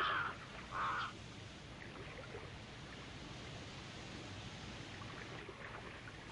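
A crow caws twice in the first second, then a steady rushing of wind and sea water.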